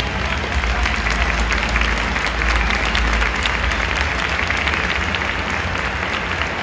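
Crowd applauding: a steady, dense clatter of many hands clapping.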